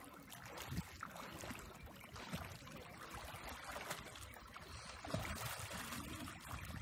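Swimming-pool water splashing and sloshing as several children wade through it.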